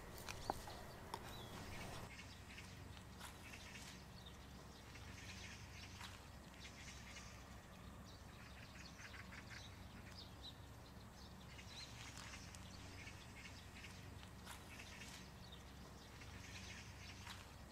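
A few knife taps on a wooden cutting board, chopping minced lamb, in the first two seconds. After that, faint scattered bird calls over a low steady background hum.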